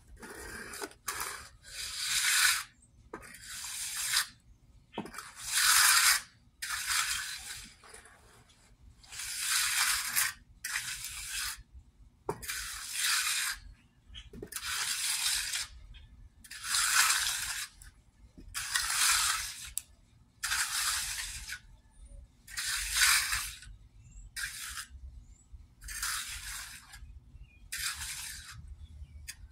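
Steel hand trowel scraping over wet concrete along the edge of a fresh slab, in repeated strokes of about a second each, roughly one every one to two seconds.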